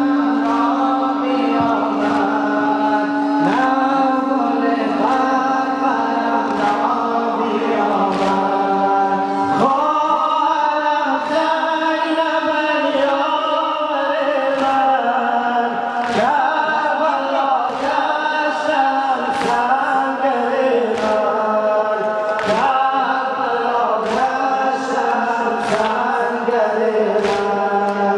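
Afghan noha (Shia mourning chant) sung in unison by a large congregation of men, with the crowd's rhythmic chest-beating (sina zani) striking about once a second under the chant. A long held note carries the first part, and the melody changes about ten seconds in.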